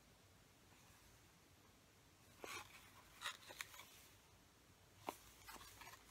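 Gloved hands handling a cardboard cologne box, otherwise near silence: a few faint short rustles and scrapes about halfway through, and a light tap about a second before the end.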